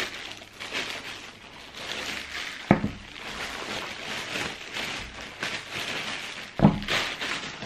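Clear plastic bag and bubble wrap crinkling and rustling as a shoe is unwrapped by hand, with two sharp knocks, one near the middle and one near the end.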